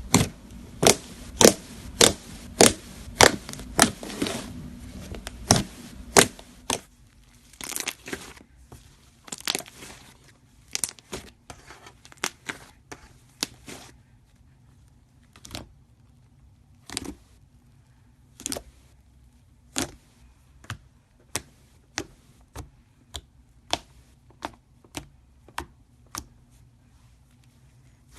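Fluffy slime being handled, giving sharp crackly pops and clicks, about two a second for the first six seconds, then sparser, fainter single pops.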